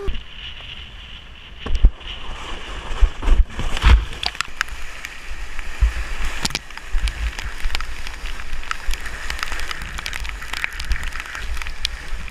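Whitewater rapids rushing around a kayak, with irregular sharp splashes and knocks from paddle strokes and water striking the boat and camera, over a low rumble.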